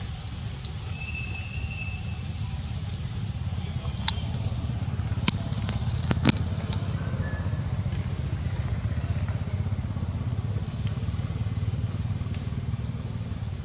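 Steady low rumble with a few sharp clicks near the middle, the loudest about six seconds in.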